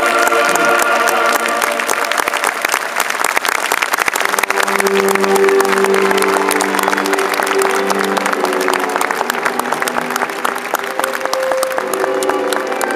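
A large outdoor crowd applauding, dense clapping throughout, over music with long held notes carried on loudspeakers. The applause greets the pronouncement of a canonization.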